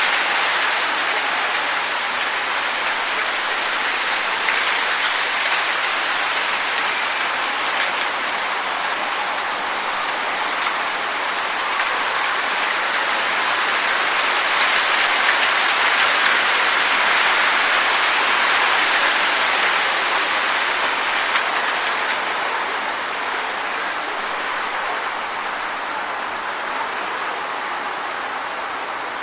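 Wind blowing through tree leaves, a steady rustle that swells about halfway through and eases off near the end.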